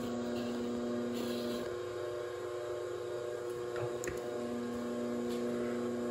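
Steady electrical mains hum, with a couple of faint clicks about four seconds in.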